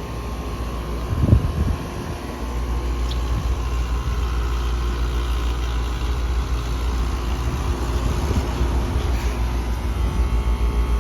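Concord air-conditioning unit running with a steady low hum and a loud, rough mechanical noise that the owner puts down to the compressor, not to vibration. There is a short loud knock about a second in, and near the end the sound pulses about five times a second.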